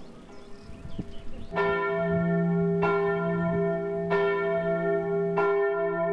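Abbey church bell tolling. It starts about a second and a half in and strikes four times, roughly a second and a quarter apart, with a long ringing hum between strokes.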